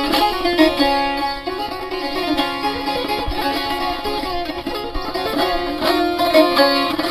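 Instrumental music on a plucked string instrument, with quick successive notes.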